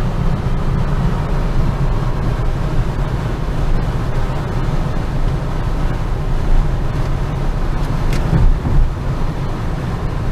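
Steady low road and engine rumble inside the cabin of a moving 2013 Hyundai Veloster, with one brief click about eight seconds in.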